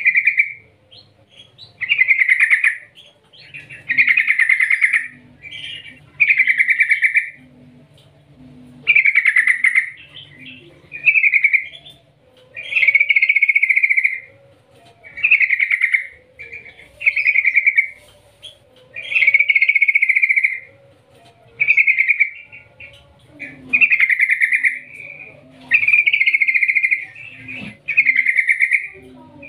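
Yellow-vented bulbul singing loud, bubbly phrases about a second long, repeated every second or two with short pauses between.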